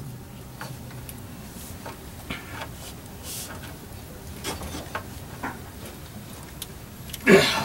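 Faint, scattered clicks, taps and rustles of hands and tools working a rubber fuel hose and clamp onto a fitting, with a short grunt of effort near the end.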